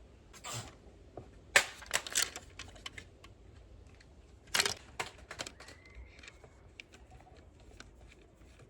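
Plastic clicks and cracks from a toy bubble gun's casing being taken apart: a few sharp snaps, the loudest about one and a half and four and a half seconds in, among lighter irregular clicks. A faint thin squeak comes about six seconds in.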